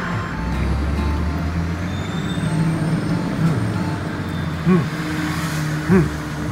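Low, steady rumble of a road vehicle, starting about half a second in, under light background music; two short, louder blips come near the end.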